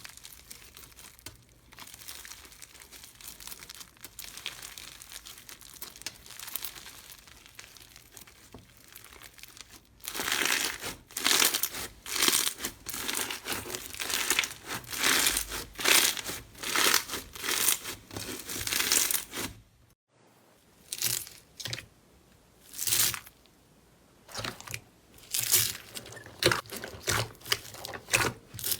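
Hands squeezing, pressing and pulling slime, making a crinkling, crackling sound. For about the first ten seconds it is a quiet, dense crackle. Then come louder separate squishes about once or twice a second, with another sudden change about twenty seconds in.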